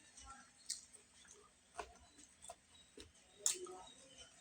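Faint close-up eating sounds: a few soft, irregular clicks and smacks of a mouth chewing.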